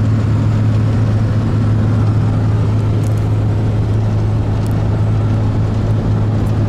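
Steady road and engine noise heard from inside the cab of a pickup truck cruising at highway speed, a constant low drone with tyre and wind rush over it.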